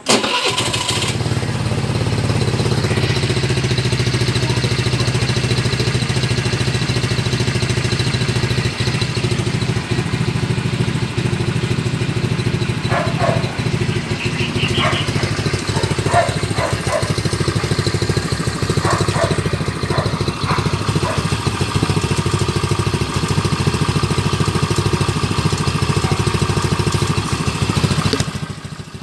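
A Rusi Pulse 150 fuel-injected motorcycle engine idling steadily, with no revving.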